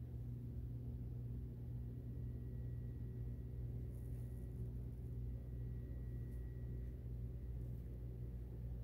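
Steady low electrical hum, with a faint thin high tone from about two and a half to seven seconds in.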